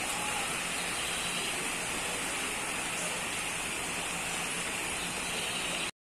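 Shallow stream running over rocks and stones, a steady rushing hiss of water that cuts off abruptly near the end.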